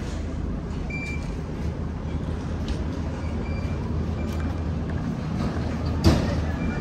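Steady low hum of a running vehicle over a constant rumble, with a single sharp knock about six seconds in.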